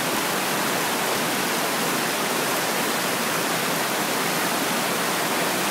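A steady, even rush of falling water.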